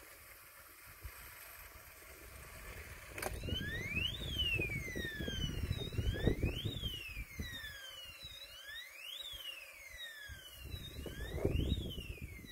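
Electronic wildlife repeller sounding a siren-like alarm: after a click a little over three seconds in, a tone sweeps quickly up and then slowly down, repeating about every two and a half seconds. A low rumble runs underneath.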